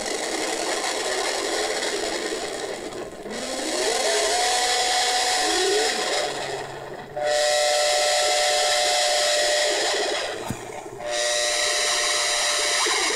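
Handmade analog modular synthesizer putting out a hissing, noisy drone with pitched tones on top. The tones glide up about three seconds in and back down a couple of seconds later, then settle into steady held tones, broken by a short gap with a single click.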